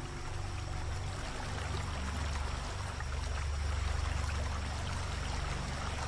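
Shallow stream water flowing over stones, a steady wash with a low rumble underneath.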